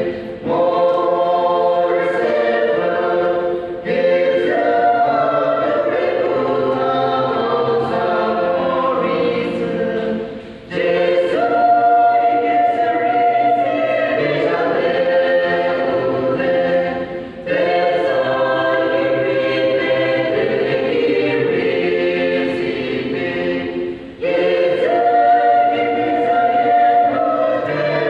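A choir singing a gospel song in parts, with long held notes in phrases and brief pauses for breath between them.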